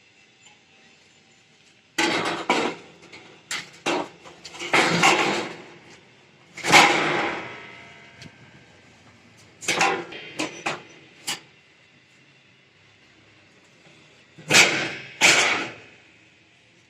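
Steel tubing clanking as it is worked: about a dozen irregular metal knocks and bangs in clusters, several ringing on for up to a second.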